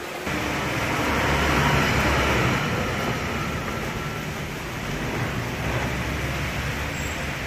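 Steady low mechanical rumble with a hiss, like an engine running, starting suddenly about a quarter second in.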